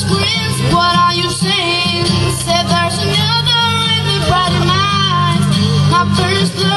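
A young boy singing into a microphone while strumming an acoustic guitar, a live amplified performance.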